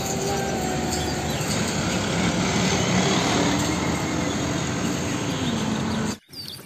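Road traffic noise with a Hino fuel tanker truck's diesel engine running as it drives by. A faint engine tone slides down in pitch about four seconds in, and the sound cuts off suddenly near the end.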